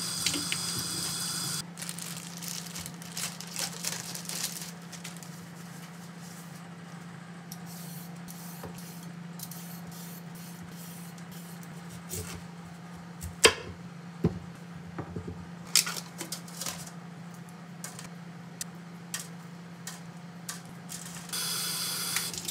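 Kitchen tap water running into a steel sink briefly at the start and again near the end, as vegetables are washed. In between, a chef's knife cutting carrot on a bamboo cutting board gives a few sharp knocks around the middle, over a steady low hum.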